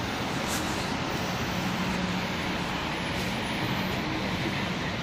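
Steady city street traffic noise, with a faint low hum that comes and goes.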